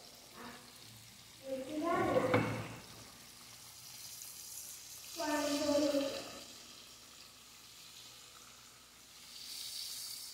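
Floured mojarra fish frying in a pan of oil: a faint, steady sizzle that grows a little louder near the end. A voice sounds briefly twice over it.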